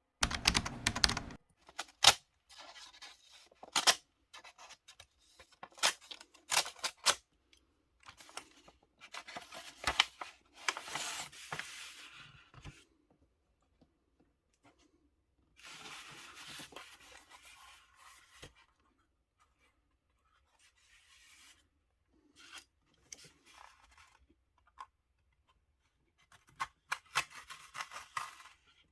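Hand work on small parts: irregular scratchy noise and sharp clicks, in several bursts separated by quiet gaps of a few seconds.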